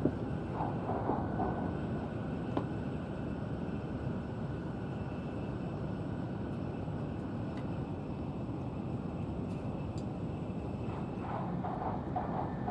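Interior running noise of an N700-series Shinkansen bullet train at speed, heard inside the passenger car: a steady low rumble and hiss, with a couple of faint clicks.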